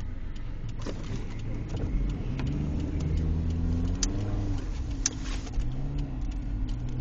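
Toyota Matrix's engine heard from inside the cabin while driving, its pitch rising and falling as it speeds up and eases off, with a few sharp clicks and knocks.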